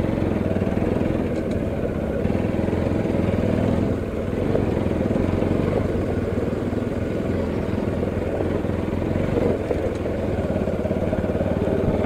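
Motorcycle engine running steadily while riding along a rough dirt road.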